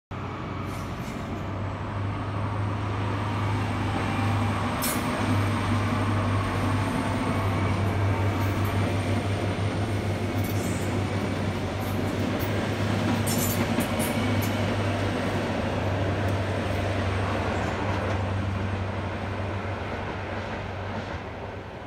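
A short InterCity 125 (HST) set passing, its Class 43 diesel power cars humming steadily along with the rumble of wheels on the rails. The sound builds over the first few seconds, holds, and fades near the end, with a few sharp clicks from the wheels along the way.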